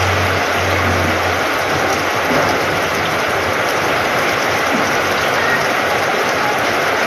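Heavy rain falling steadily in a downpour, splashing into puddled ground. A low hum sits under it for the first second and a half.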